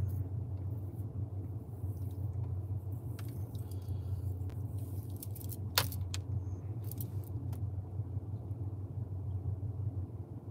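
Vehicle engine running at a steady idle, a constant low hum heard from inside the cab, with a few faint light clicks, the clearest about six seconds in.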